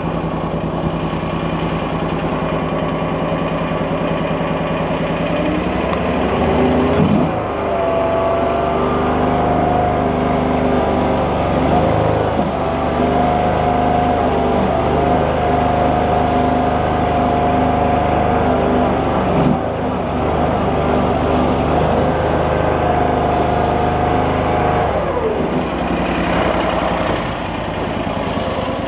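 Mini skid steer's 23-horsepower gasoline engine running as it warms up just after starting. It idles steadily, then its speed rises about six seconds in and holds higher with a steady whine, dropping back to idle near the end.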